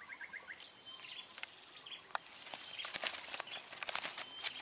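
Steady high-pitched insect chorus with short, repeated bird chirps over it. From about three seconds in, a flurry of sharp clicks and rustling comes in close by and is the loudest sound.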